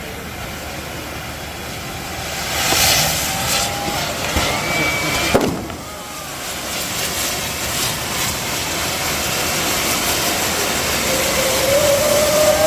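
Festival fireworks display: a continuous rushing din of shells and crackers that swells a little over two seconds in. There is one sharp bang about five seconds in, with a few brief whistle tones over the noise.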